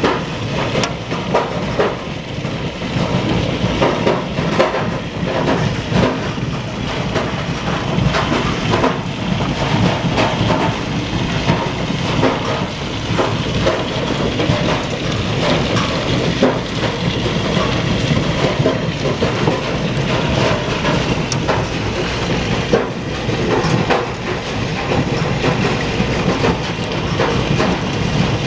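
Hailstones pelting down hard surfaces in a heavy hail storm: a loud, dense, steady clatter of countless small impacts.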